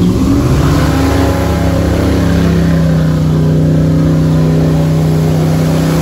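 Airboat's engine and propeller revving up, the pitch rising over about the first second, then running steadily at high power.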